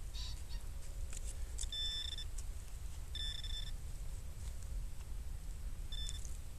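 Handheld metal-detecting pinpointer beeping as it is probed through loose soil, picking up a buried metal target: a half-second beep about two seconds in, another about a second later, and a short blip near the end.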